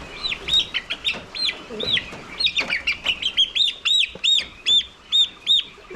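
Young poultry peeping: a rapid run of short, high, arched cheeps, loose at first, then a regular series of about three a second that grows louder in the second half.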